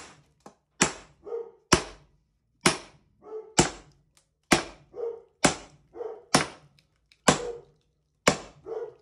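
Steel sledgehammer striking the back of an axe head driven into a willow round, splitting it along its grain: sharp metal-on-metal blows at a steady pace of about one a second, nine in all. A shorter, softer sound comes between most of the blows.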